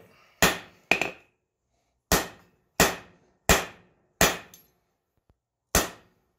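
Heavy forging hammer of about five pounds striking hot 5160 coil-spring steel on an anvil: seven separate blows, each with a short ring, with a pause after the second. The blows are drawing out a taper in stiff, hard-to-move spring steel.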